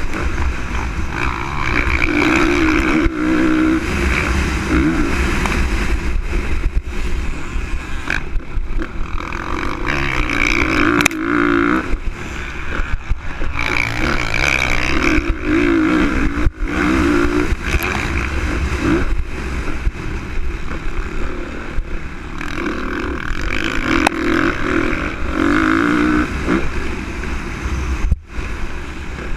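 Onboard sound of a 2013 Honda CRF450R's single-cylinder four-stroke engine, revved up and backed off again and again as the bike races around a motocross track, with a low wind rumble on the microphone.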